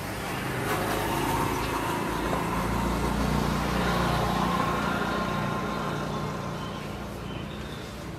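A motor vehicle's engine running, a low rumble that grows louder to a peak about halfway through and then fades away.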